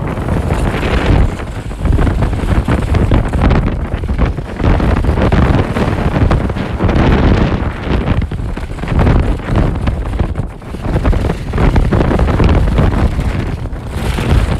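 Loud, gusting wind rumble on a phone's microphone during a downhill ski run, with the skis hissing over wind-crusted snow. It surges and dips several times.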